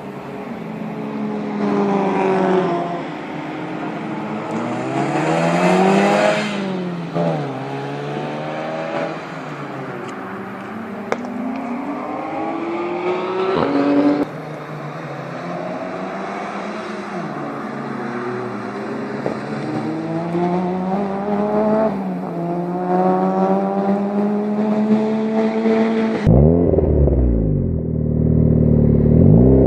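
Car engine revving hard, its pitch climbing and dropping again and again with sudden drops like gear changes. Near the end the sound switches to a louder, deeper revving.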